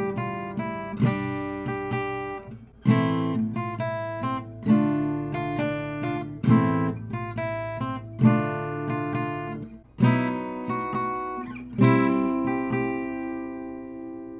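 Acoustic guitar playing a slow instrumental tune, with chords plucked and strummed about every one to two seconds. The last chord is left to ring and fade near the end.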